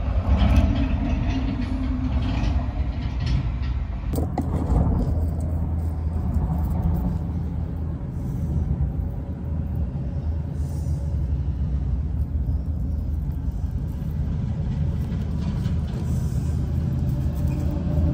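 Steady low rumble of heavy traffic on a major highway.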